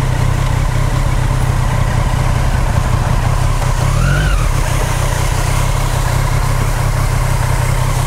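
Motorcycle engine running steadily while riding, under a constant rushing hiss; about four seconds in the engine note briefly rises and falls, like a short blip of the throttle.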